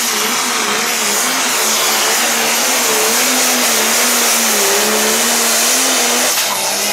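Turbocharged diesel engine of an International Pro Stock pulling tractor running at full throttle under load as it drags the weight sled. Its pitch wavers up and down over a loud hiss, and the engine note drops away about six and a half seconds in.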